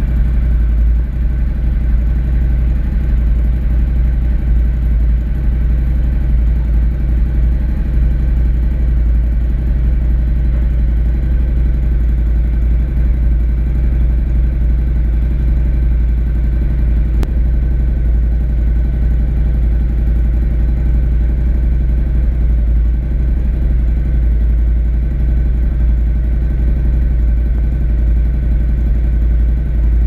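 Ducati Scrambler 1100's air-cooled L-twin idling steadily through an Akrapovic Slip-On Line titanium exhaust, with a low, even note.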